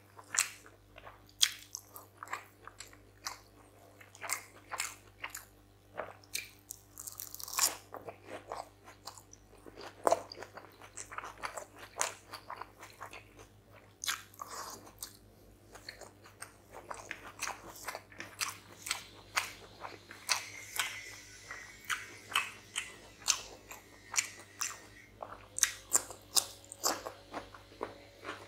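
Close-miked eating sounds of a person eating rice and chicken curry by hand: wet chewing and lip smacking with frequent irregular sharp clicks and crunches.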